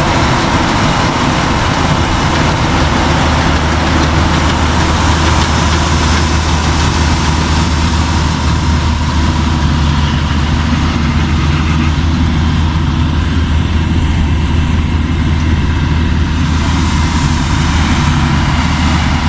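A large engine running steadily at a low, even speed with a deep hum.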